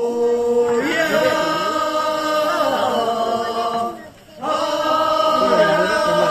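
A group of voices singing a long, drawn-out chant together, the held notes wavering in pitch. The singing breaks off briefly about four seconds in and then starts again.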